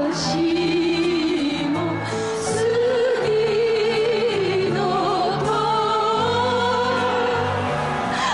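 A song sung by a female voice, with long wavering held notes over steady instrumental accompaniment.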